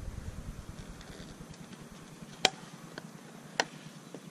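Two sharp clicks about a second apart, with a fainter one between, as the side trim panel of a Suzuki GSX-R750 is worked loose by hand.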